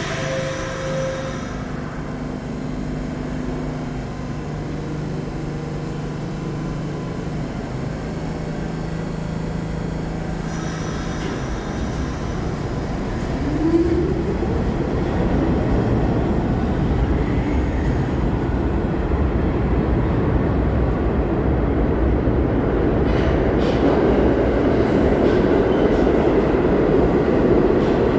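New York City Subway R46 train standing at the platform with a steady low hum and two short descending tones near the start, then pulling out about 14 seconds in. Its wheels rumble on the rails, growing louder as it accelerates away into the tunnel.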